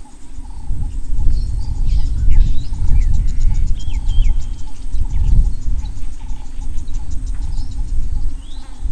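Open grassland ambience: wind rumbling on the microphone, loudest through the middle, under a fast insect trill and a few short bird calls.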